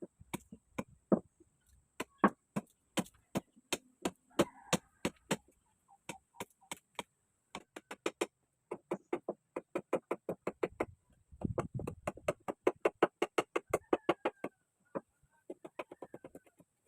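Repeated sharp strikes of a tool on the bolo and its handle, at first two or three a second, then in quicker runs of about five a second.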